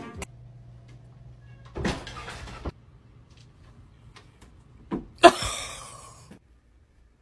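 A cat leaping about a cat tree: a soft knock about two seconds in, then a loud thump with a rattling scrape lasting about a second, about five seconds in.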